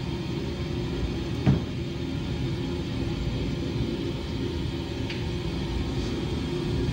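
A low, steady rumbling drone with faint held tones, and a single sharp knock about a second and a half in.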